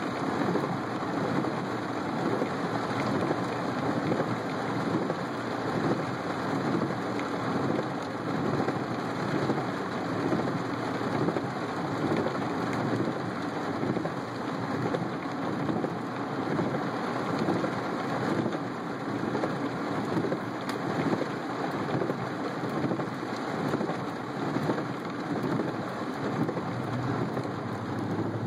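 Heavy monsoon rain pounding on a car's roof and windshield, heard from inside the car: a loud, dense, steady rush that keeps swelling and easing.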